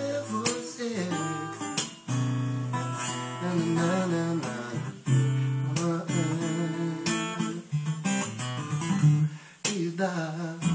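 Acoustic guitar playing a melodic passage with a sustained bass underneath, single-note melody mixed with strummed chords, some notes bent or slid in pitch.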